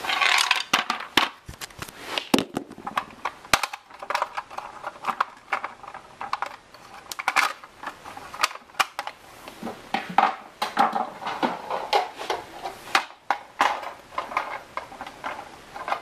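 Irregular light clicks and taps, with rustling between them, from a plastic toy horse figure being handled and moved on a wooden floor.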